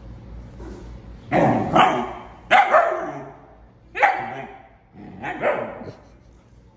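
Husky-type puppy barking five times in short, high barks spread over a few seconds, play barking at a cat while in a play bow.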